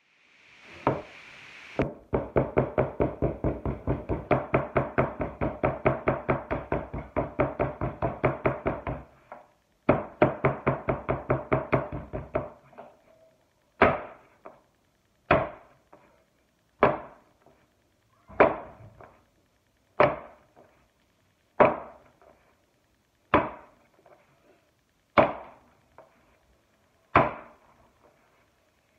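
Clay being pounded flat on a work table: a fast run of knocks at about five a second, a short break, more fast knocks, then single heavy thumps about every second and a half.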